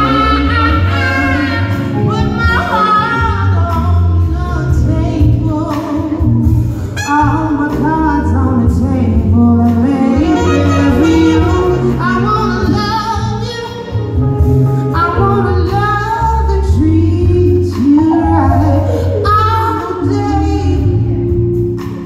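A woman singing live into a microphone, her voice gliding through long sung phrases over a low instrumental backing.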